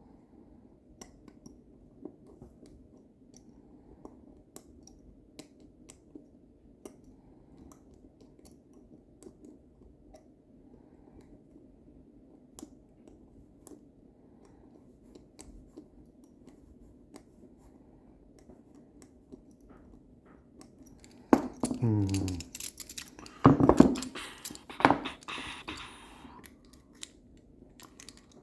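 Faint clicks and scrapes of lock picks working inside a lever lock over a low hum, followed about 21 seconds in by a few seconds of louder handling: a falling squeak and several sharp knocks.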